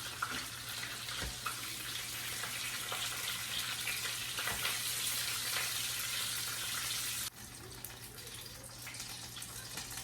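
Breaded chicken cutlets sizzling in olive oil in a frying pan: a steady hiss with small crackles, which drops abruptly to a quieter sizzle about seven seconds in.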